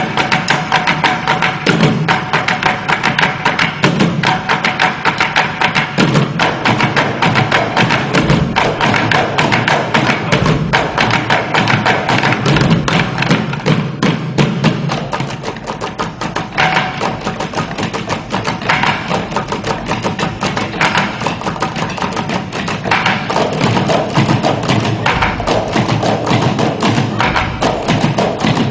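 Instrumental music with busy percussion: a dense run of fast, dry wood-block-like clicks over heavier low thumps every second or two, with a few sustained tones under it.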